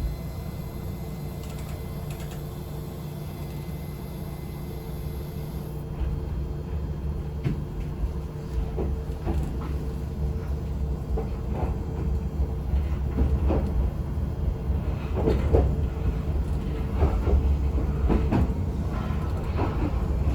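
Electric local train heard from inside the front car, pulling away from a station: a steady low hum while standing, then about six seconds in the low rumble of the motors and running gear sets in and grows louder as the train gathers speed, with wheel clicks over the rail joints coming more often.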